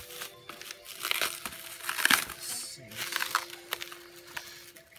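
Plastic packaging wrapped around a car trim piece crinkling as it is handled and pulled at, in irregular bursts, the loudest about two seconds in.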